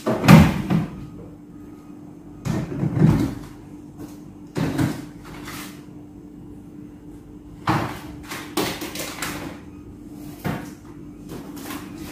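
Rummaging in a wooden kitchen wall cabinet: a series of separate knocks and clunks as containers are moved about and set down on the shelf, the loudest right at the start.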